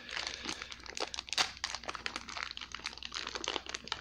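Plastic packaging being crinkled and torn open by hand: a continuous irregular crackling.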